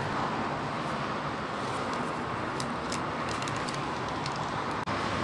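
Steady rushing background noise that starts and stops abruptly, with a few faint light ticks about halfway through.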